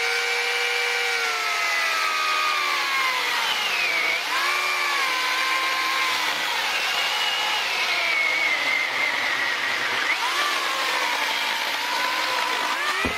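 Corded electric chainsaw running and cutting wood on a freshly self-sharpened chain, its motor whine steady but dipping in pitch under load at about four seconds and again near ten seconds.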